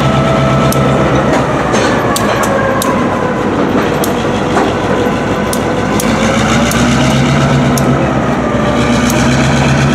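CSX SW1001 switcher locomotive's diesel engine running steadily as it pulls tank cars slowly through a street crossing. Irregular clicks and a wavering squeal come from the wheels of the moving train.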